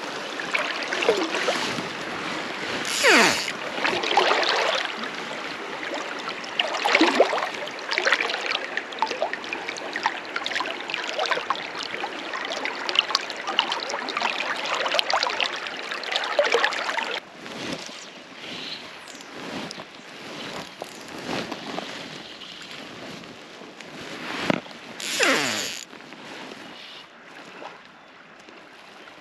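Fast-flowing river water rushing and gurgling steadily, with a few brief, louder swishes. The rushing drops noticeably a little over halfway through.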